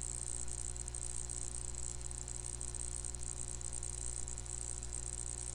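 Steady low electrical hum under a constant high-pitched hiss: the background noise of the recording setup, with no distinct events.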